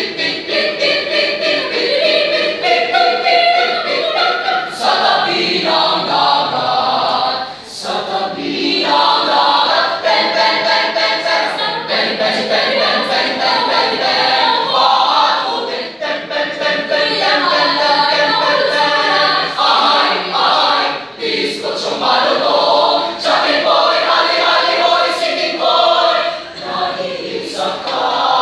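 Mixed choir of male and female voices singing a cappella in several parts, phrase after phrase, with a few short breaks between phrases.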